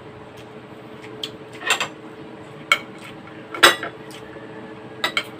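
Cutlery clinking against bowls and plates during a meal: about six separate sharp clinks, the loudest a little past halfway, over a steady faint hum.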